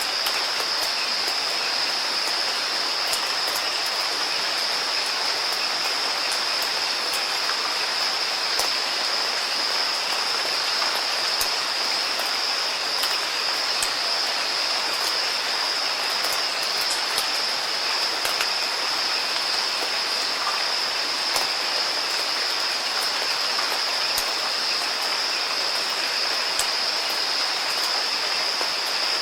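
Steady rain falling: an even hiss with scattered sharp drop ticks, and a steady high-pitched tone running through it.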